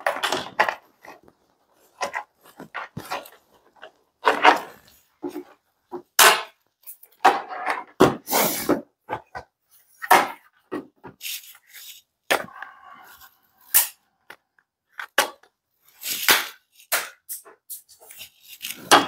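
Irregular clicks, knocks and rubbing of hard plastic parts being handled and set down on a table, as the black plastic housing pieces of a portable air compressor are taken apart.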